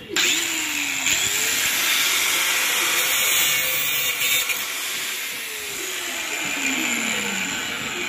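Angle grinder with a cutting disc running and cutting through a pipe on a refrigerator compressor. It makes a loud hissing whine, and its motor pitch sags near the end.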